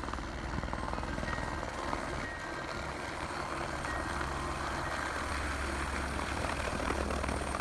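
A helicopter of the Airbus AS350 A-Star type hovering low over the snow as it comes in to land: a steady turbine-and-rotor drone with a fine, even rotor chop.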